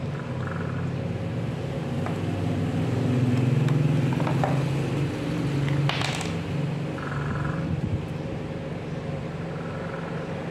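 Steady low mechanical hum that swells a little about a third of the way in. Light clicks of hard plastic drill parts being handled are heard over it, with a sharper clatter about six seconds in.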